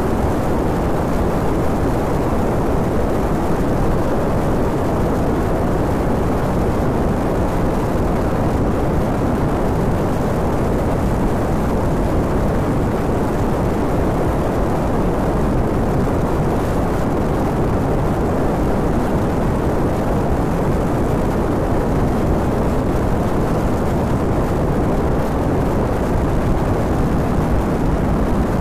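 Steady wind and riding noise on the microphone of a phone mounted on the handlebars of a Honda VTR250 motorcycle cruising at a constant speed, with the motorcycle's V-twin engine running under it.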